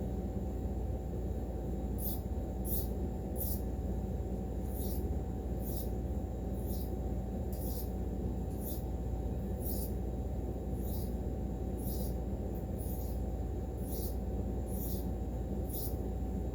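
Short, high-pitched scraping strokes of a knife blade across a sharpening stone, roughly one a second, starting about two seconds in, over a steady low hum.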